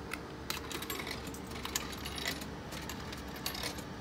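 Coins clinking as they are fed into a drink vending machine's coin slot: a string of short, sharp metallic clicks at uneven intervals.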